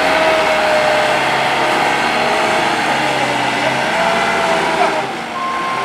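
Heavy work truck's engine running steadily, with a whining tone that wavers up and down in pitch. About five seconds in, a reversing beeper starts sounding.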